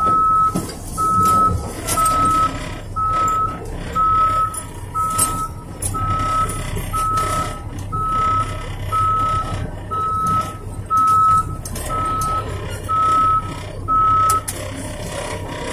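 Dump truck's reverse alarm beeping about once a second while the truck backs up, over the low running of its engine. The beeping stops near the end as the truck halts.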